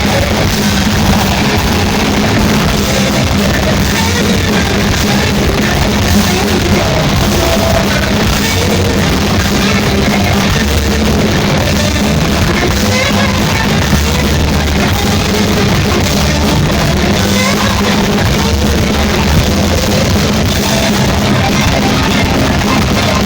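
Live heavy metal band playing loud and dense: distorted electric guitars, bass and a pounding drum kit, with shouted vocals, as heard from the audience in a club.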